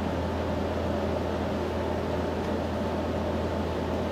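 Steady background hum with an even hiss, unchanging throughout: constant machine room noise such as a fan or air conditioning.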